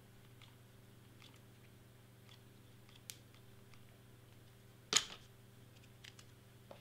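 Hot glue gun worked along a cardstock piece: faint clicks and ticks about once a second, with a sharper click about three seconds in. About five seconds in comes a sharp clack with a short rattle as the glue gun is set down on the cutting mat. A faint steady hum runs underneath.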